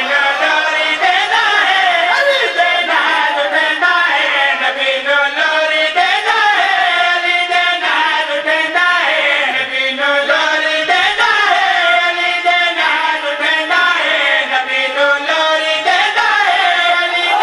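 Several men chanting a Punjabi devotional qasida together into a microphone, in long melodic phrases that rise and fall, without instruments.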